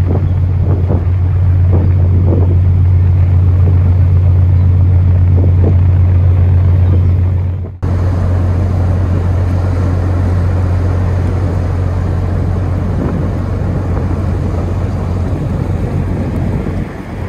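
Steady low drone of the cargo freighter Manitoulin's engines as the ship moves out of port, with wind noise on the microphone.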